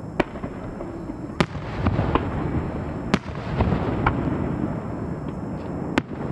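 Fireworks going off: aerial shells bursting with sharp bangs, four loud ones about a quarter second, a second and a half, three seconds and six seconds in, and smaller ones between, over a steady din of further fireworks.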